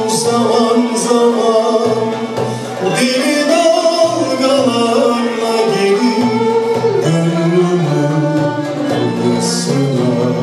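A male soloist singing a slow Turkish art music (Türk sanat müziği) song with long held, wavering notes, accompanied by violins and a small ensemble.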